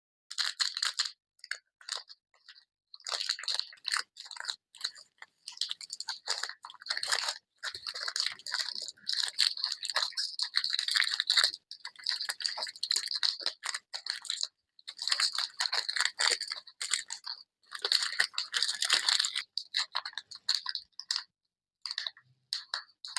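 Close-up crinkling and crackling of wrappers and packaging being handled and opened, in runs of a few seconds broken by short pauses.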